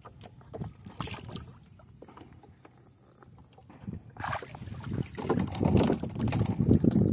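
Water sloshing and splashing around a person wading in shallow water while handling a fishing net, with scattered light splashes at first, then heavier, louder sloshing from about halfway in.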